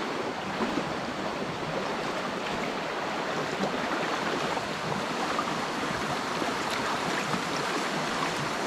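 Stream water running steadily over rocks.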